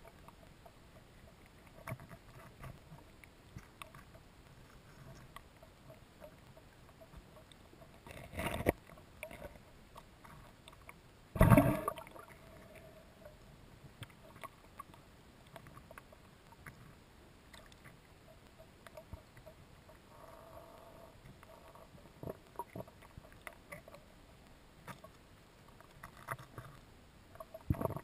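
Underwater ambience heard through an underwater camera: faint scattered clicks and crackles, with two short, loud rushing noises about eight and eleven seconds in.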